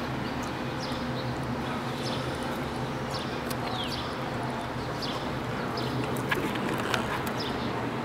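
Steady city background hum heard through a window, with a few faint, brief high bird chirps scattered through it, one of them falling in pitch about midway.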